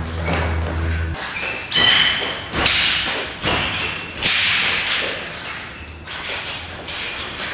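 A series of sharp whip-like cracks and swishes, about five in all, from a kung fu fan being snapped open and shut and swung hard, with a curved broadsword swung near the end.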